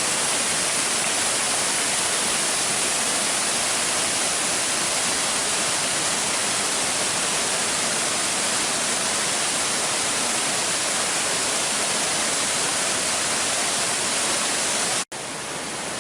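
Steady, loud rush of a waterfall. It cuts out for an instant near the end and comes back a little quieter.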